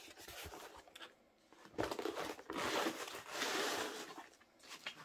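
Stiff diamond-painting canvases and a plastic mesh zip bag rustling and crinkling as they are handled, louder from about two seconds in to about four.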